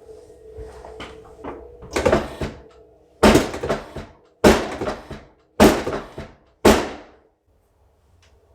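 Loud thuds during a chiropractic adjustment: a softer knock, then four sharp, loud strokes about a second apart, each dying away over half a second.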